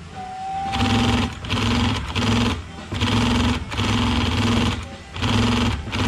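Industrial single-needle sewing machine stitching webbing in short runs. It starts about a second in and stops and starts about six times, with brief pauses between runs.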